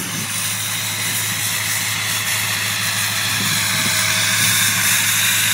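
Ford 6.0 L Power Stroke V8 turbo-diesel idling steadily just after a cold start at about −10 °C, a low hum under an even exhaust hiss. It is still at its normal low idle; the cold-weather high idle has not kicked in.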